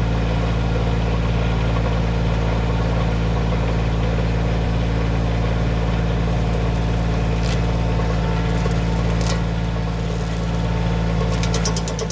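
Bobcat CT2025 compact tractor's diesel engine running steadily.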